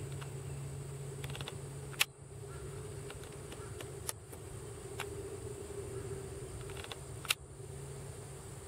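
A steady low hum with a thin high whine, broken by two sharp clicks about five seconds apart and a few fainter ticks: camera handling and recording noise.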